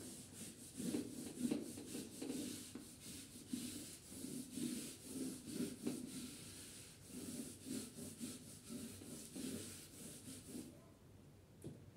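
A hand-held whiteboard eraser rubbing across the board in quick repeated back-and-forth strokes, wiping off the writing. The strokes stop shortly before the end.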